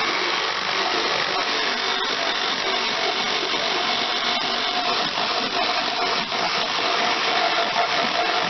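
A handheld power tool running continuously, likely cutting or boring into the kayak's hull plastic. Its motor whine settles into a steady tone about three seconds in.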